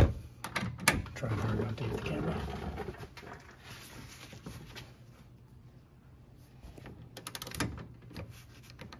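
Hand tools working the nut and bolt of a sway bar link: a sharp metallic click at the start and another about a second later, some clattering of tools, then a quick run of ratchet clicks near the end as the ratchet is turned.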